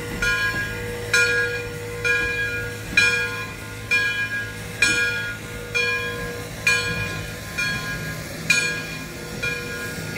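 Bell of steam locomotive 1630 ringing steadily, about one strike a second, as the train rolls past, over the low rumble of the moving train.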